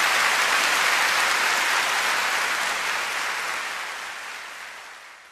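Concert audience applauding, an even clatter of many hands clapping that fades away over the last two seconds.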